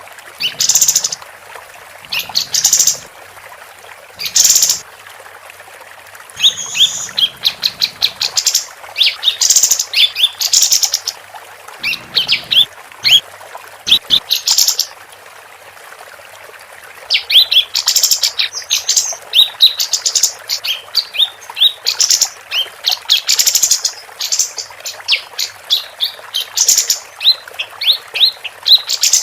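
Female kapas tembak, a bulbul, singing in bursts of quick, high chirps and short rising notes, broken by brief pauses and one quieter stretch of about two seconds midway.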